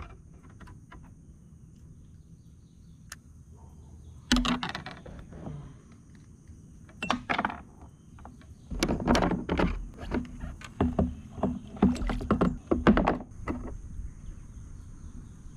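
Irregular knocks and thumps against a kayak's hull: a few scattered ones, then a dense cluster in the second half.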